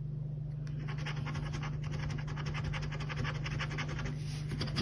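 A scratch card's silver scratch-off coating being scraped away in rapid short strokes, starting about a second in, over a steady low hum.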